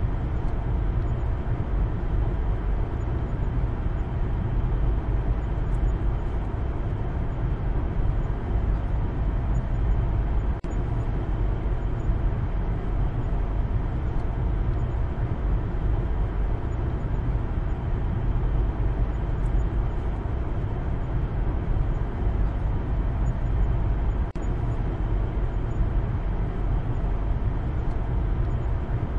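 Steady low rumble of road and engine noise inside a moving Maruti Suzuki Baleno's cabin, with a brief drop in level about ten seconds in.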